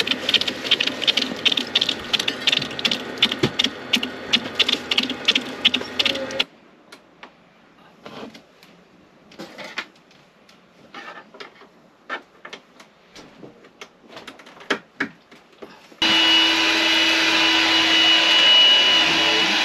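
Water spattering and spraying out of a caravan hot water heater's loose push-on fitting. After a sudden cut come faint clicks and knocks of handling, then for the last few seconds a cordless vacuum cleaner runs with a steady whine as wet flooring is vacuumed.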